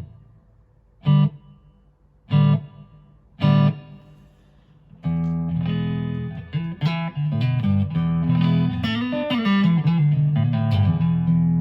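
Electric guitar played through a Boss ME-70 multi-effects unit. Three short chord stabs come about a second apart, then from about five seconds in comes continuous playing of ringing chords and single notes.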